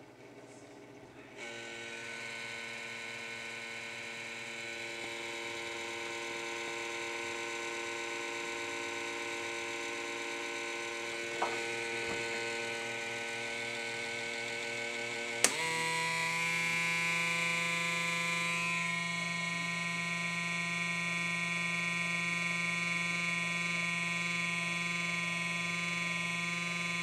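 Computer making a strange steady electric hum of several layered tones at startup, coming on about a second and a half in. A faint click comes near eleven seconds, then a sharper click near fifteen seconds, after which the hum drops to a lower, different set of tones and keeps going.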